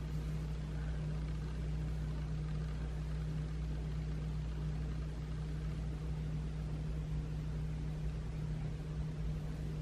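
A steady low hum under a faint even hiss, with no distinct events.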